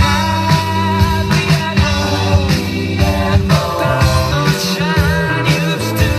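A song with a sung melody over bass and drums, played loud through a powered PA loudspeaker and picked up by a cell phone's microphone during a speaker sound test.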